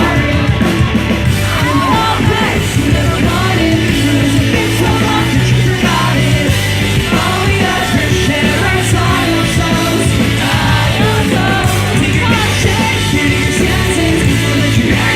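Pop-punk band playing live, loud: electric guitars, bass and drums with sung lead vocals over them.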